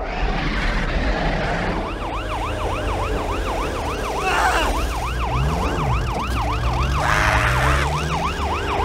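Police siren going up and down fast, about three cycles a second, starting about two seconds in, over a steady low engine rumble.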